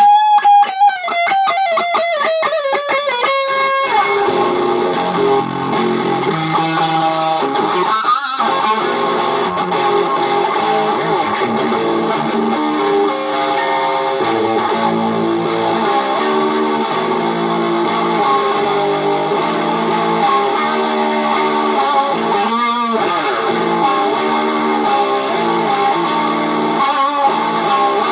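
Electric guitar music: a quick descending run of picked notes, then from about four seconds in a continuous stream of notes over a held tone.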